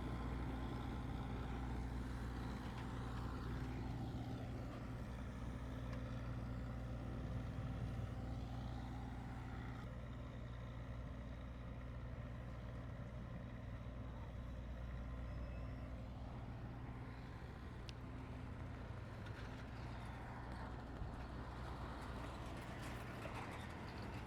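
A large vehicle's engine running steadily, a low hum that eases off slightly as it goes on, with street and site noise behind it.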